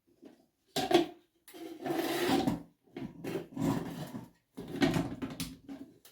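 Plastic vacuum cleaner parts being scrubbed and rubbed by hand during cleaning: a sharp knock about a second in, then four or five rough rubbing strokes of about half a second to a second each.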